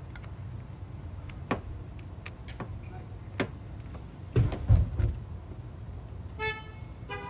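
Sharp plastic clicks and knocks from handling the parking-light housing and plugging in its connector, with a cluster of louder low thumps about four and a half seconds in.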